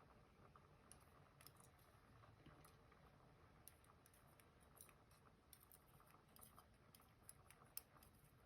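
Faint, scattered small clicks of tiny lock parts being handled as a driver pin and its spring are taken out of a pin tumbler lock while it is gutted.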